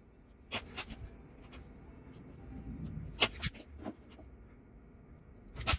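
Fine metal pick scraping packed lint and dirt out of a phone's USB-C charging port: a few short scrapes, the loudest right at the end.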